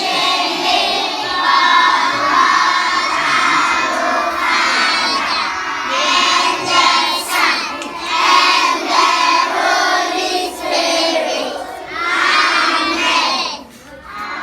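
A large group of schoolchildren singing together in unison, loud and partly shouted, as a closing song. The singing breaks off about a second before the end.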